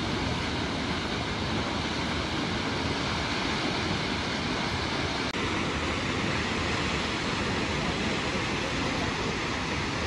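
Steady rushing of Kegon Falls, a tall plunge waterfall, an even wash of falling water with no breaks.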